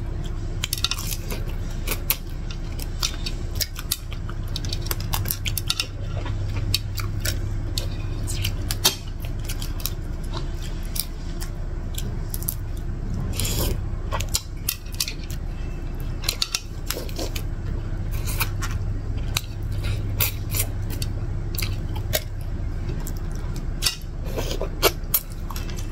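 Crisp fried shell of a deep-fried giant freshwater prawn cracking and snapping as it is peeled apart by hand, close to the microphone: a long irregular run of sharp clicks and crunches.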